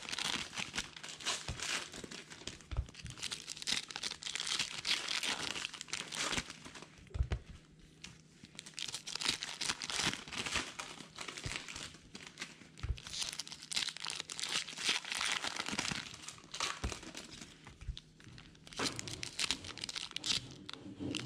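Foil wrapper of a 2020 Donruss baseball card pack crinkling and tearing as it is worked open by hand, in irregular crackly bursts, with a few soft thumps.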